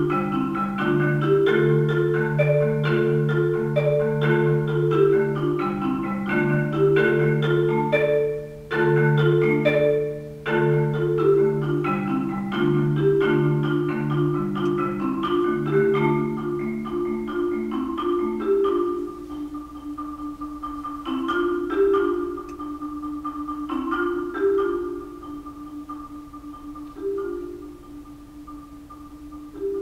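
Solo marimba played with four yarn mallets, with dense chords and long rolled notes in the low and middle register. After about eighteen seconds the music thins and grows softer: one held roll with scattered notes above it.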